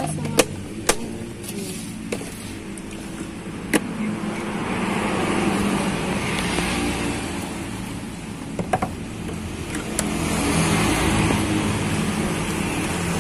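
Road traffic: vehicle engines running with a steady hum that swells twice as vehicles pass, with a few sharp plastic clicks and knocks, the first of them about half a second in as a plastic food container is handled.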